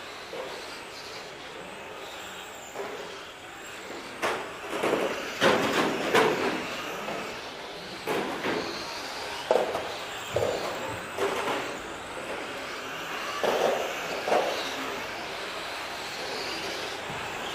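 Radio-controlled touring car driving on a track: a steady hiss from its motor and tyres, with a run of louder irregular bursts and knocks from about four seconds in until near the end.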